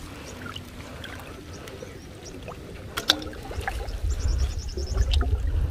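Shallow water splashing and trickling as a wet fishing net is handled and picked through for fish, with scattered small knocks and one sharp click about three seconds in. A low rumble builds after the middle.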